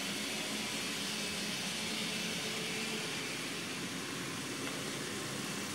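Steady whir of a model train running on layout track, led by a four-unit lash-up of model diesel locomotives: motor hum and wheels rolling on the rails, with no sudden sounds.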